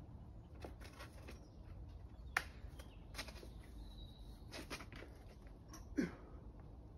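Climber's hands and rock shoes scuffing, tapping and scraping on the boulder, with a sharp tap about two and a half seconds in. Near the end comes a short grunt that falls in pitch, as the climber makes a move.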